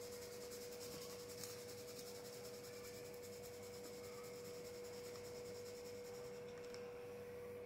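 Faint rubbing and rolling of a model building's base shaken back and forth by hand on marbles, under a steady hum at one pitch.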